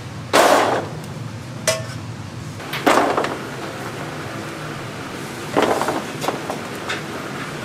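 Sticky glazed fried chicken pieces dumped from a metal scoop onto a stainless steel tray, with the scoop and a metal spatula scraping and clattering on the steel in three short bursts and one sharp clink, over a steady low hum.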